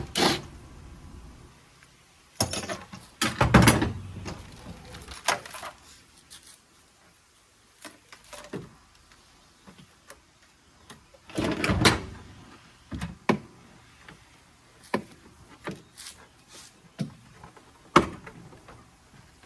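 Irregular knocks, clicks and clatter of car body parts and trim being handled and worked loose, with the heaviest clattering about three seconds in and again near the middle.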